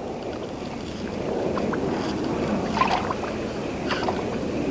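Small waves lapping against the hull of a drifting boat: a steady wash of water, a little louder after the first second or so, with a few faint slaps.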